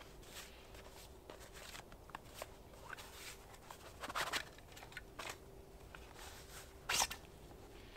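Handling of camping gear: rustles and small clicks as the leather straps and buckles of a canvas pack are pulled and fastened, with a louder brief scrape about four seconds in and another near the end.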